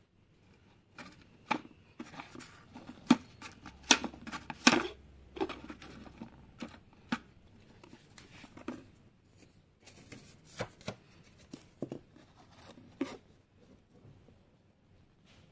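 Crackling and clicking from a plastic protein-powder tub lid and its white foam liner being handled and peeled away. The noises come in an irregular run, busiest and loudest about four to five seconds in, then thinning out.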